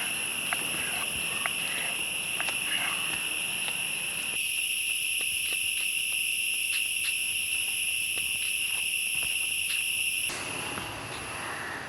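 Insects trilling in one steady, high, unbroken drone, with a few faint clicks over it. The drone drops and the background changes abruptly near the end.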